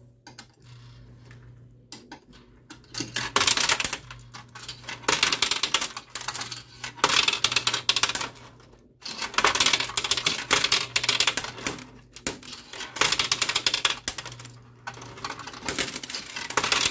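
Quarters fed into a coin pusher arcade machine clattering onto its metal playfield and against the piled coins, in rapid runs of clicks lasting a second or two with short pauses between, over a low steady hum.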